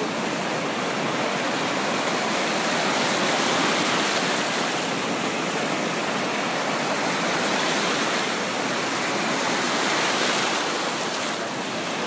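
Ocean surf breaking and washing over the shallows: a steady rushing of water that swells a little twice.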